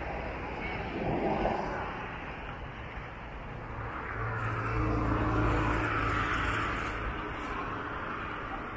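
A motor passing by: a steady low engine hum with rushing noise that swells to its loudest about five seconds in, then fades.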